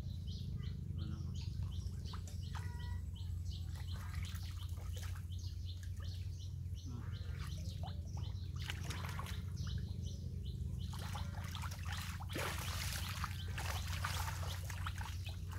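Birds chirping in short, repeated calls over a steady low hum. Splashing and sloshing in shallow muddy water comes about eight seconds in and again near the end, as hands grab at fish in the mud.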